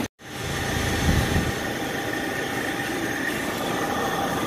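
Large shop floor fan running with a steady whirring hum, and a brief low thump about a second in.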